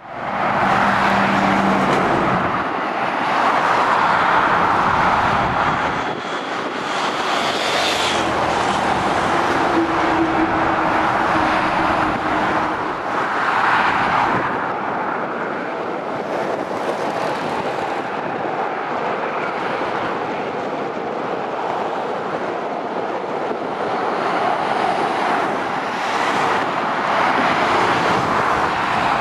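Passing road traffic of heavy lorries and cars: a continuous tyre-and-engine noise that swells and fades as each vehicle goes by, with a low engine drone heard now and then.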